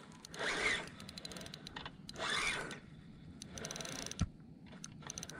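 Spinning reel clicking in fast fine ticks while a hooked catfish is played, with two soft whooshes about half a second and two seconds in and a single sharp tick near the end.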